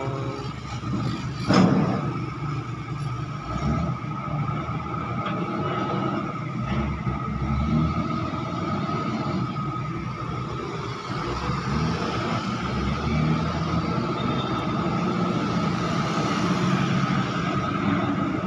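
Diesel engines of a container reach stacker and trucks running, with a steady whine over the engine noise. A single loud metal clank comes about a second and a half in.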